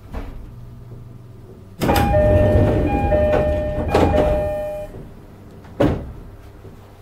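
Sliding passenger doors of a JR East E531-series commuter train opening at a station stop, with a rush of noise and the door chime: three two-note chimes, high then low. A short knock comes at the very start and a single sharp thump about six seconds in.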